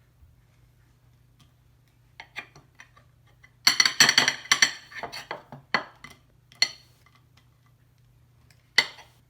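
A metal spoon clinking and knocking against crab legs to crack them: scattered sharp clicks, then a dense run of loud knocks in the middle, a couple more after, and one last sharp clink near the end.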